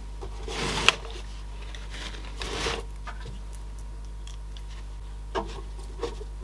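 Two short rubbing, brushing sounds of hands handling the CD player's metal case on the work mat, the first ending in a light click, over a steady low hum. Near the end come two small taps as a screwdriver is brought to a case screw.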